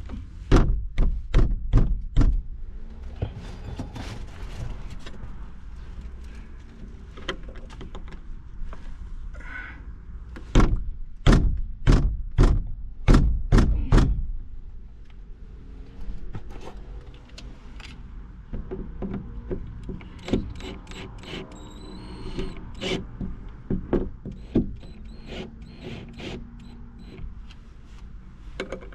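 Work on a boat light fixture: two runs of sharp knocks and clunks, one near the start and a louder one about ten seconds in, with quieter clicks and rattles in between and after.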